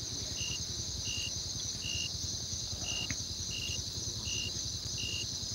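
Evening insect chorus: crickets keep up a steady high-pitched shrilling, with a short chirp repeating about every three-quarters of a second over a low rumble.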